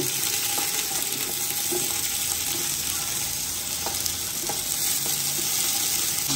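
Sliced onions sizzling in hot cooking oil in a large aluminium pot, a steady hiss with a few faint ticks as more onion slices go in.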